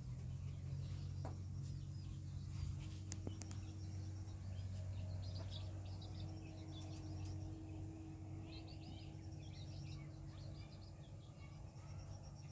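Small birds chirping in short bursts over a steady low hum, with a few faint clicks.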